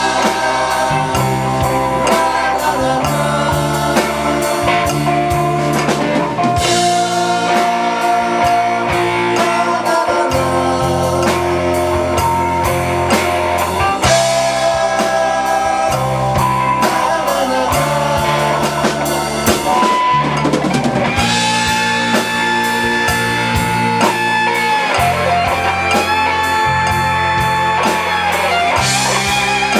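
Live rock band playing an instrumental break: drum kit and a stepping bass line under a sustained lead guitar melody with bent notes.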